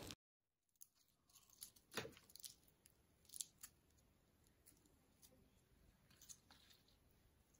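Faint crackling and tearing of flaky layered pastry being pulled apart by hand, a scatter of small crisp crackles with the loudest about two seconds in.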